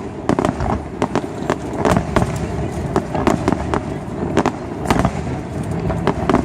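Aerial fireworks shells bursting in quick, irregular succession, several sharp reports a second over a continuous low rumble.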